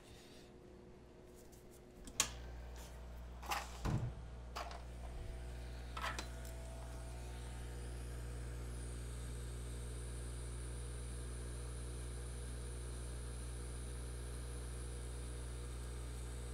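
A click about two seconds in as a hot air rework station's blower starts, then a steady low hum with a few knocks of metal tweezers and the board shield being handled. From about eight seconds a steady airy hiss joins the hum as the hot air flows, ready for reflowing the solder on the shield.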